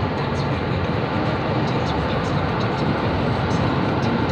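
Steady road noise of a car travelling at motorway speed, heard from inside the car: an even rush of tyre and wind noise with a low rumble underneath.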